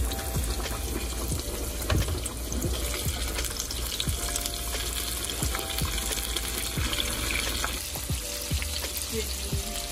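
Floured chicken pieces deep-frying in a pot of hot vegetable oil: a steady sizzle thick with crackles and pops as pieces are lowered in with a spatula.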